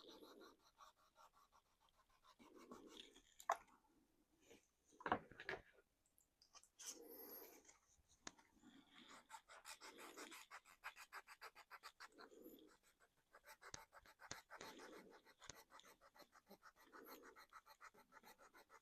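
Faint scratching and rubbing in repeated strokes: sandpaper worn against the painted plastic of a 3D-printed RC body, wearing the paint through toward the primer. A couple of light knocks from handling come about 3.5 and 5 seconds in.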